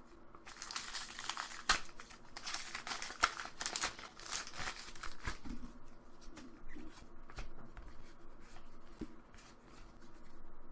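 A Pokémon booster pack's foil wrapper crinkling and being torn open, dense for about five seconds, then lighter clicks and rustles as the cards are handled.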